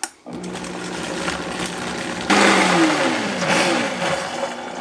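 A click of the switch, then a Vitamix Professional Series blender motor starting and running as it purées roasted red peppers and garlic into a sauce. It gets louder a little past halfway through.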